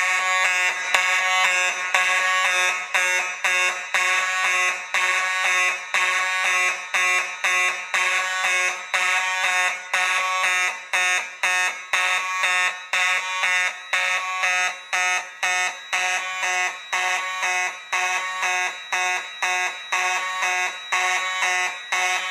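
Two fire alarm horns sounding together after a manual pull station is pulled, a loud buzzing horn tone pulsing in quick even repeats.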